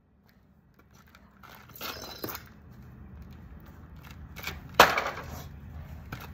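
Scattered clicks and knocks from a smashed TV set, with one sharp knock about five seconds in that is the loudest. The first second is near silent.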